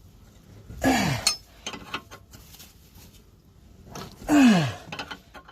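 A man grunting hard twice with effort as he forces a pressed-in ball joint out with a press tool, each grunt a short falling groan, with small tool clicks and knocks between them.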